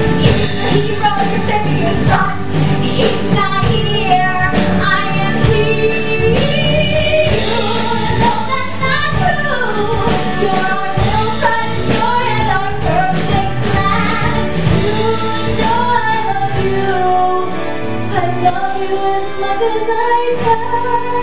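A woman singing a musical theatre song over a pop-rock band accompaniment with drums.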